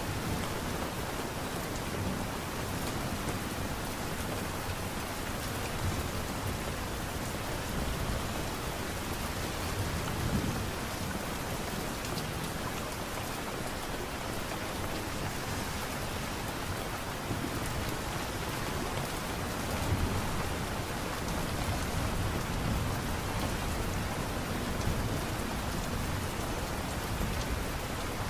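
Steady light rain falling, an even patter, with brief low rumbles about ten seconds in and again near twenty seconds.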